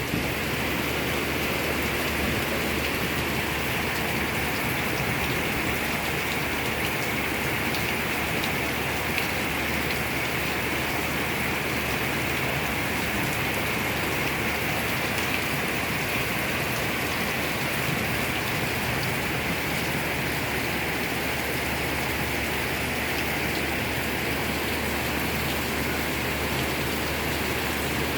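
Heavy rain falling steadily, a constant even hiss of drops with no breaks.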